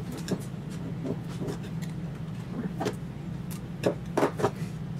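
Light clicks and taps of a red hookup wire being handled and bent around the stepper-motor drivers, with a few sharper taps near the end. A steady low hum runs underneath.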